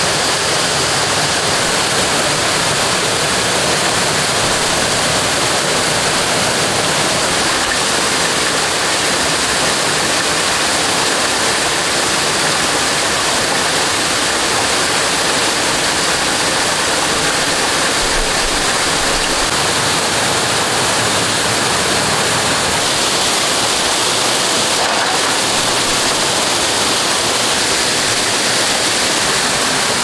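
Steady rush of stream water tumbling over rocks into a pool.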